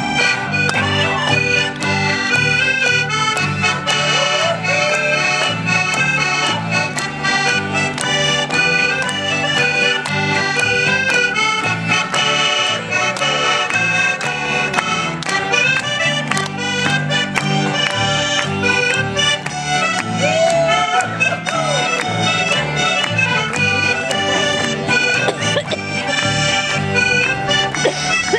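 Accordion music: a button accordion plays a lively traditional tune with a small band, a steady beat in the bass underneath.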